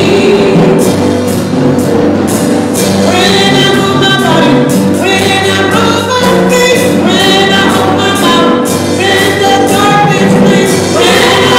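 Gospel praise and worship song sung by a small group of singers in unison and harmony, over steady instrumental backing.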